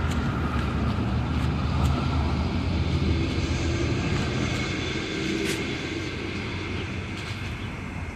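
Low, steady engine rumble that swells in the first half and slowly fades, with a single sharp click about five and a half seconds in.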